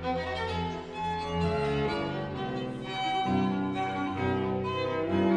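Background music of bowed string instruments, violin and cello, playing slow held notes.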